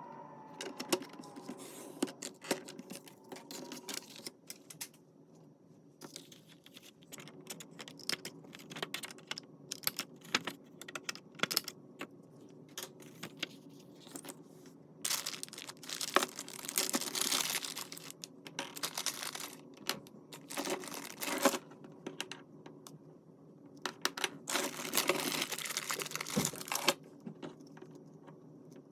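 Paper and craft materials being handled at close range: a string of light taps and clicks, with a few longer stretches of rustling, rubbing or tearing paper.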